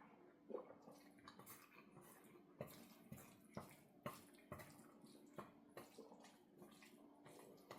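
Close-up wet eating sounds: chewing and smacking of the mouth in a string of short, irregular clicks, with a faint steady hum underneath.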